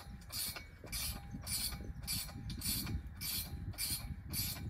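Hand ratchet worked in steady strokes, a short burst of clicking about twice a second, as a fitting on a steel fence rail is tightened.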